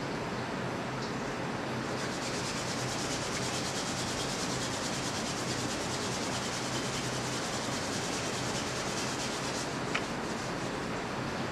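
Palms rubbed briskly together, a fast, even rasping that starts about two seconds in and stops shortly before a single short click near the end, over a steady tape hiss.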